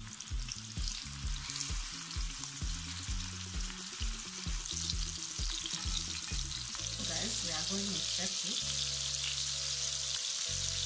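Shrimp frying in hot oil with a steady sizzle that grows louder from about halfway through.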